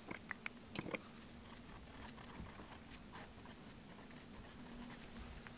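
Faint scratching of a fountain pen's steel nib writing on notebook paper, after a few light taps and paper handling in the first second.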